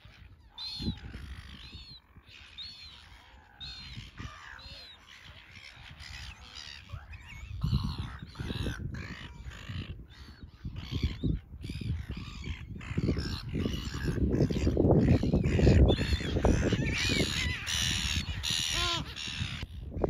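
Gulls calling: a short call repeated every second or so, building into a busy chorus of many overlapping calls.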